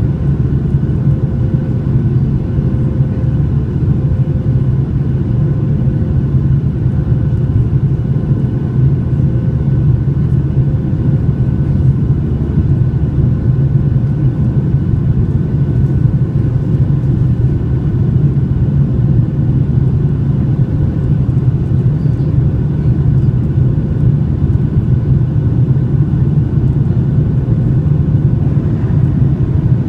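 Cabin noise of a Boeing 737-800 with its CFM56 engines running, heard from a window seat: a loud, steady low rumble with a few faint steady tones above it.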